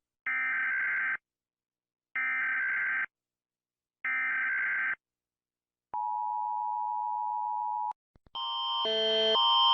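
Emergency Alert System sequence: three one-second bursts of screeching digital SAME header data, a second apart, then a steady attention tone for about two seconds. About eight seconds in, a louder alarm begins, switching back and forth between tones and rising in volume.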